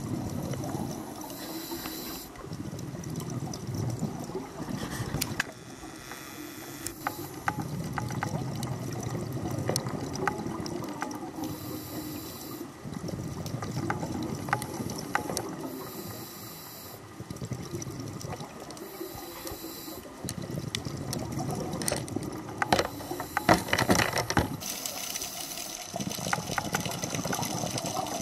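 Scuba regulator breathing heard underwater: a hissing inhale through the regulator several times, each followed by a rush of exhaled bubbles, with scattered sharp clicks throughout.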